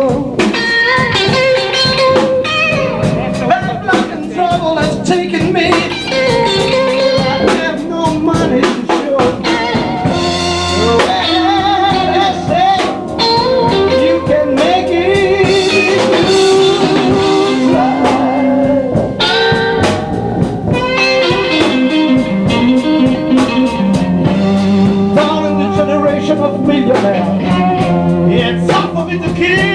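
Live blues band playing a slow blues: an electric guitar takes the lead with bending notes over bass and drums.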